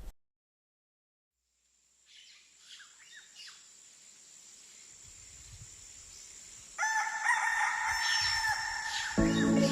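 Silence, then faint bird chirps from about two seconds in; a rooster crows near the end, and music with a bass line comes in just before the end.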